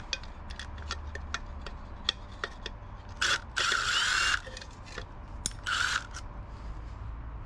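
Milwaukee Fuel cordless driver backing out the rear sprocket bolts, running in three short bursts, the longest about a second, with light metal clicks from the wrench and bolts between them.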